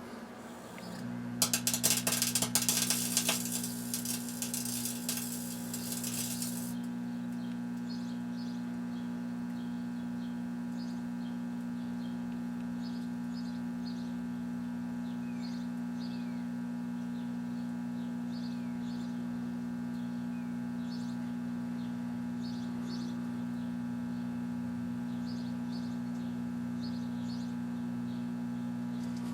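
1984 Kenmore microwave oven switching on about a second in with a steady electrical hum. For the first five seconds of cooking a loud crackling buzz sounds over the hum, then stops, and the hum runs on evenly.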